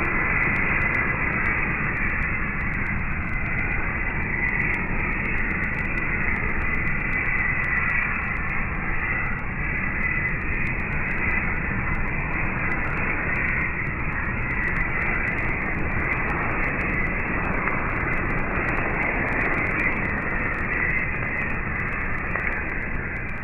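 Campfire being blown with a hand bellows: a steady rushing of air with many short, sharp crackles from the burning wood.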